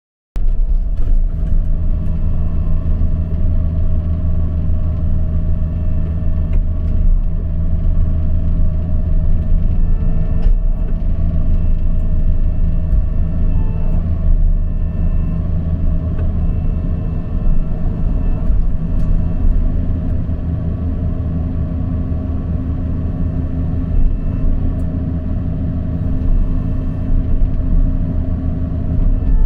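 John Deere 50G mini excavator's diesel engine running steadily, heard from inside the cab, with a low rumble; its note shifts slightly about two-thirds of the way through, with a few faint clicks.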